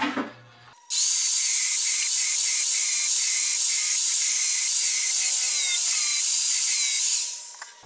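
Electric angle grinder grinding down the brazing on the repaired cast-iron lathe tailstock. The disc makes a loud, steady hiss on the metal, and the motor's whine wavers up and down under load. It starts about a second in and dies away near the end.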